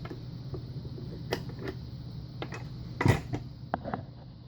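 Scattered light metallic clicks and taps of lock-picking tools being handled at a picked Russwin pin-tumbler lock held in a vise, with one louder knock about three seconds in.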